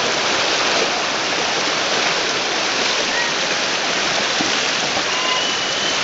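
Shallow mountain river rushing over rocks and boulders: a steady, loud hiss of running water.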